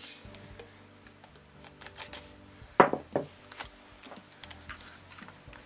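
Scotch tape being pulled off and handled: small clicks and crinkles, with two short rasping tears about three seconds in as the loudest sounds.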